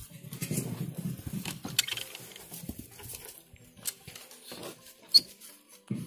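Irregular rustling and light knocks at a wooden rabbit hutch with hay inside, with a low rumble in the first two seconds and a sharp click about five seconds in.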